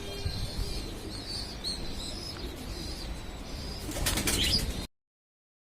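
Pigeons' wings flapping in a burst about four seconds in, over wind rumbling on the microphone and faint high bird chirps; the sound cuts off abruptly just after.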